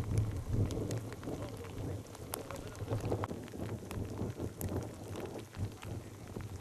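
Steady outdoor noise: a low rumble with many small irregular clicks and ticks scattered through it.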